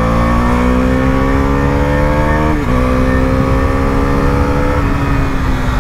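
Husqvarna Vitpilen 250's single-cylinder engine pulling through the gears on an aftermarket underbelly exhaust. The pitch climbs steadily and drops at an upshift about two and a half seconds in, then climbs again and drops at a second shift near the end. The exhaust sounds close to stock, with just a little more bass.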